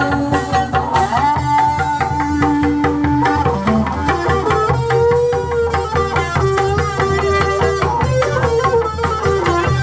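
Sundanese traditional ensemble music: dense hand-drum strokes under a sustained melody line that slides between notes.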